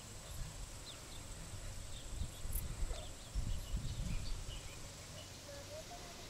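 Open-air rural ambience: scattered short bird chirps over a steady thin high insect tone, with low rumbling gusts of wind on the microphone, strongest in the middle.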